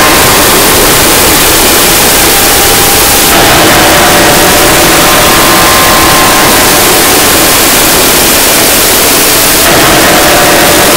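Harsh noise music: a very loud, dense wall of distorted electronic noise across all pitches, with faint steady tones underneath. The texture shifts abruptly about every three seconds.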